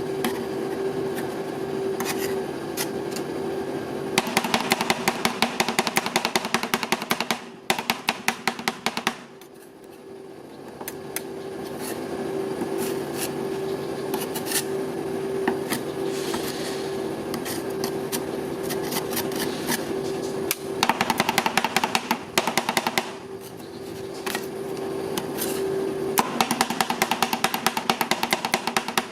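Metal spatulas chopping rapidly on an ice cream roll cold plate in fast runs of clicks, with scraping of the ice cream mix between runs and a steady hum underneath.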